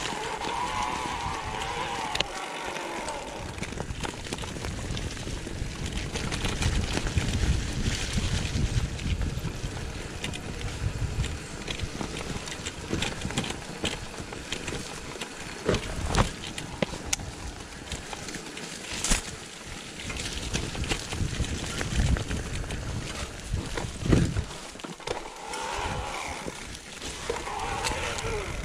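Mountain bike descending a dirt forest singletrack: tyres rolling and crunching over earth and dry leaves under a low rumble, with the bike rattling and clicking over bumps and a few sharper knocks, the loudest about two-thirds of the way through. A wavering tone rises over the noise near the start and again near the end.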